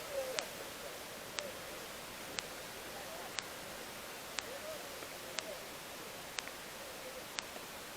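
Steady hiss with faint, distant voices, and a short sharp tick about once a second.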